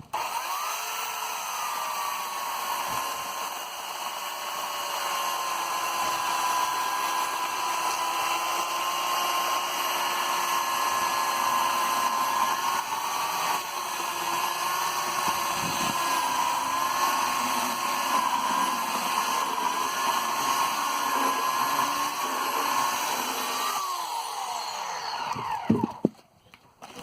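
Oregon CS1500 electric chainsaw's motor spinning up and running with a steady high whine that wavers slightly in pitch, then winding down with a falling whine about two seconds before the end.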